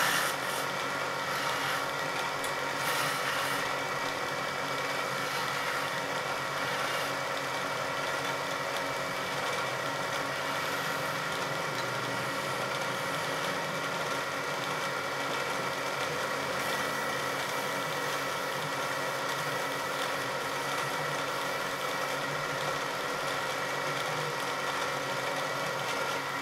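Wood lathe running with a steady hum as a small wooden spindle turns. In the first few seconds, and briefly again a little later, a hand chisel scrapes and cuts into the spinning wood with a dry hiss, throwing off chips. After that the lathe runs on alone.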